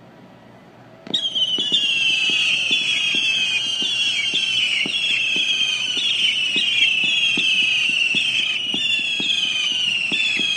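A fireworks barrage of whistling rockets shot up in quick succession, starting about a second in. Many high whistles overlap, each sliding down in pitch, over short sharp pops about two or three a second.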